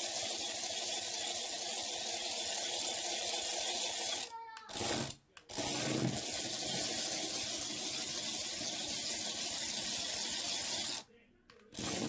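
Small electric motor and plastic gears of a remote-control toy whirring steadily as it drives. The whirr breaks off briefly about four and a half seconds in, runs again, and cuts off suddenly about eleven seconds in.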